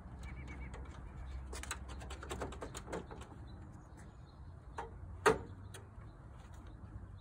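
Clicks and rattles of a Ford F-350's chrome grille being handled and worked loose by hand: a run of quick clicks about a second and a half in, then a single sharp snap a little past halfway, the loudest sound.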